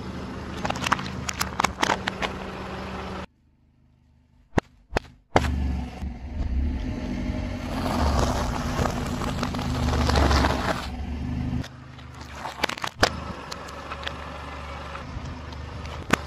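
A car tyre rolls slowly over packaging and crushes it: plastic air pillows, a Nutella & Go cup and a Pringles tube crackle and give sharp pops over the car's steady low engine hum. The sound cuts out about three seconds in, leaving near silence broken by a few clicks. Then a louder rumble of crushing returns.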